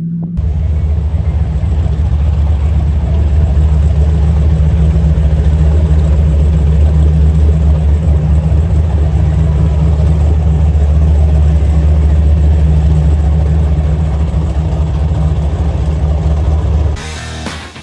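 Large performance engine running loud and steady with a deep exhaust rumble, cutting off about a second before the end.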